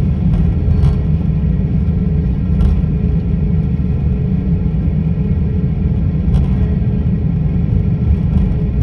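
Airliner cabin noise while the jet taxis: a steady low rumble from the engines and the rolling airframe, with a faint steady hum and a few faint knocks.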